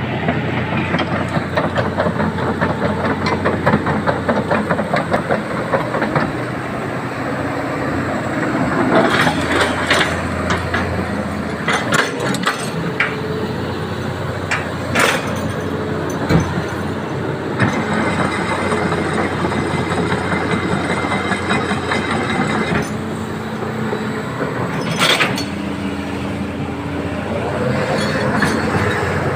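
Hitachi EX200-5 hydraulic excavator's diesel engine running steadily during a test run after repair, with a few sharp metallic clanks now and then and a high whine joining for several seconds in the middle.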